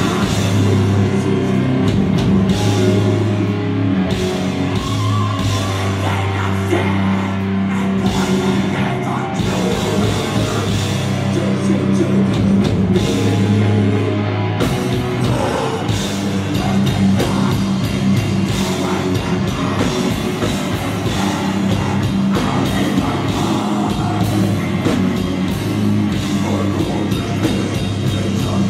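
Live heavy metal band playing at full volume: electric guitars and a drum kit, with a vocalist singing into a microphone.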